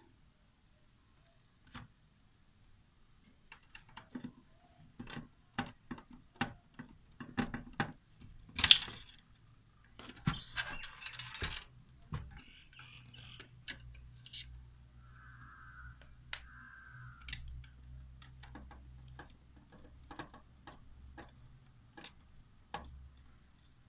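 Handling noise from a cassette deck being taken apart: scattered clicks, taps and knocks of hands and tools on the metal chassis and plastic parts. The loudest knock comes about nine seconds in, followed by a second or two of rustling scrape. A faint low hum runs through the second half.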